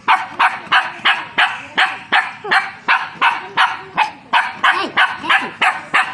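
Cocker spaniel barking steadily in a fast, even run, about two to three barks a second.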